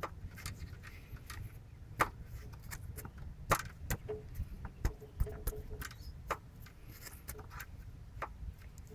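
A Volvo B230 four-cylinder's aluminium piston being rocked in its cast-iron bore with the head off, clacking against the cylinder wall in irregular sharp metallic clicks. This is the piston-to-bore clearance that gives these engines their piston slap on a cold start.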